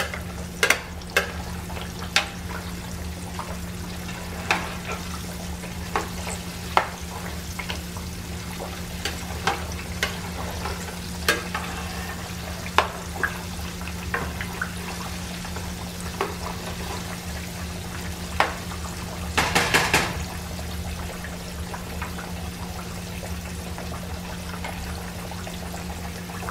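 Flour-coated pork chops shallow-frying in hot oil: a steady sizzle, with scattered sharp clicks as a plastic slotted spoon taps and pushes the chops around the pan. A short burst of louder crackling comes about twenty seconds in.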